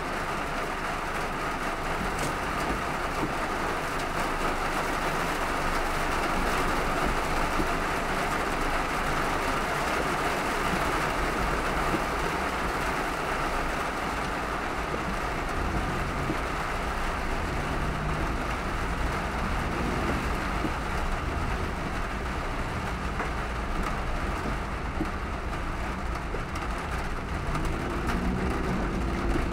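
Heavy rain falling in a steady hiss, with low traffic and road rumble underneath that grows stronger about halfway through.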